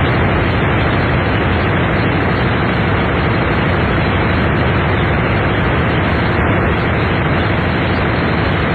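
Loud, steady radio static: an even hiss with no voice, as from a receiver picking up noise instead of the broadcast.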